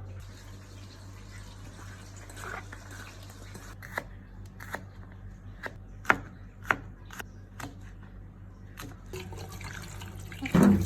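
Kitchen food preparation at a sink: faint water noise with a series of irregular sharp knocks and clicks, then a louder clatter near the end. A steady low hum runs underneath.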